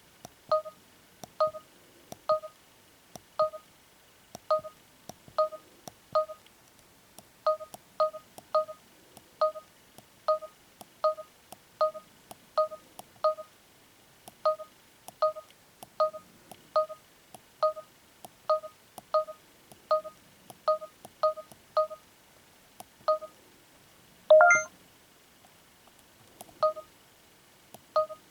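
Samsung camcorder's button beeps as its menu is stepped through: about forty short, identical beeps at one pitch, each with a faint click, coming unevenly one to two a second. About 24 seconds in, a single longer, louder beep on several pitches, like a confirm tone.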